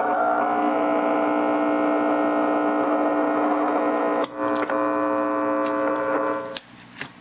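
Self-oscillating drone from a ProCo RAT and Marshall Guv'nor distortion pedal chain through a Marshall mini-stack amp: a loud, steady hum of many held pitches, made by the pedals themselves and not by guitar feedback. A footswitch click about four seconds in briefly interrupts it. Another click a couple of seconds later cuts the drone off, leaving faint hiss and a few more clicks.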